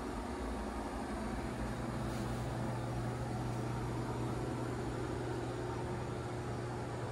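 Steady low mechanical hum over an even hiss, unchanging throughout: machinery running inside a boat's cabin.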